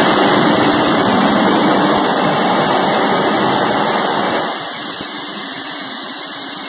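Small jet engine on a test rig running with its afterburner lit, a steady loud rush. About four and a half seconds in the afterburner flame goes out and the sound drops to a quieter, thinner rush as the engine runs on.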